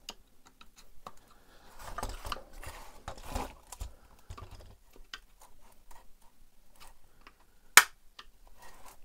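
Flat-blade screwdriver prying at the old, brittle plastic cover of a Webasto Thermo Top V heater: scattered clicks and scraping of metal on plastic, busier about two to four seconds in, with one sharp snap near the end that is the loudest sound.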